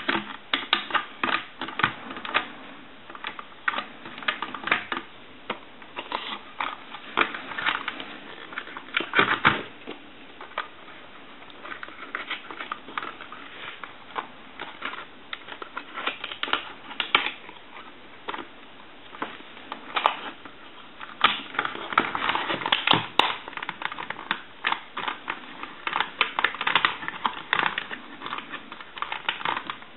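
Irregular plastic clicks and rattles of an AT&T 210 Trimline telephone being reassembled by hand, its parts fitted and snapped together, with busier clicking in the last third.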